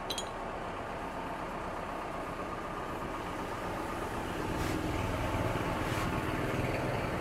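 Steady hum of a motor vehicle engine running in the background, growing a little louder about halfway through, with a couple of faint clicks near the end.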